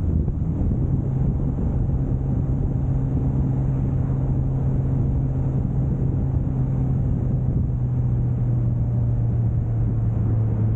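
1995 Toyota Soarer's single-turbo 2JZ straight-six cruising at steady revs: a constant low drone with tyre and road noise underneath.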